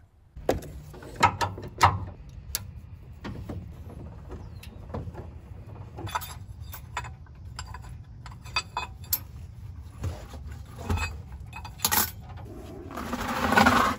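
Metal clicks and clinks from a pickup's underbed spare-tire cable winch as the spare is lowered and the cable hook is worked free of the wheel. A louder scraping rush comes near the end.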